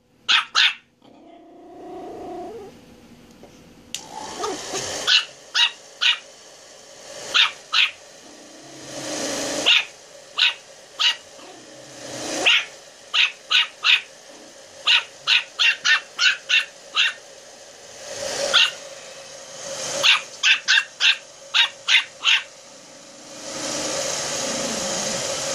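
Pomeranian puppy yapping: short, high-pitched barks in quick runs of two to five, with pauses between runs. Near the end a steady blowing noise starts up.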